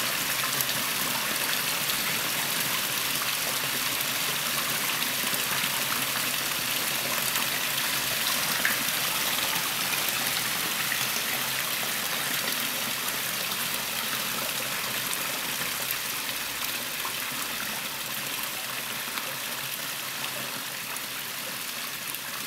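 The Blue River, a mountain river, rushing over rocks in white water: a steady, even rush of flowing water that cuts off abruptly at the end.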